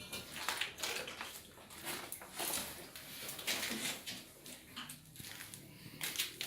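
Scattered light knocks, scrapes and rustles of parts and screws being handled while a washer-dryer is put back together.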